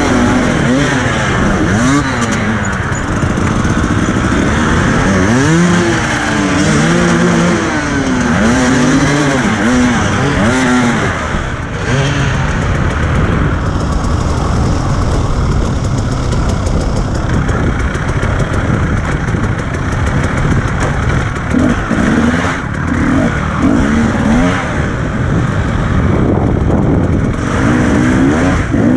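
Husqvarna TE300 two-stroke enduro motorcycle engine revving up and down over and over as the throttle is worked, over a steady rush of noise.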